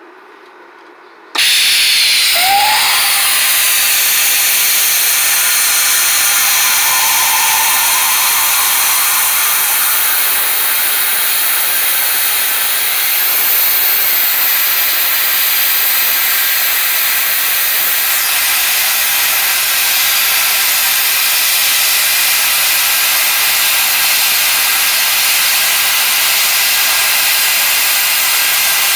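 Lotos LTP5500D plasma cutter torch firing about a second and a half in, then a loud, steady hiss of the cutting arc and air stream as it cuts through 3/4-inch steel plate.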